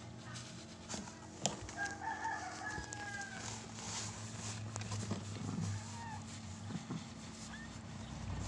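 A rooster crowing once: one long pitched call of nearly two seconds. Light rustling and a few taps of handling are heard around it.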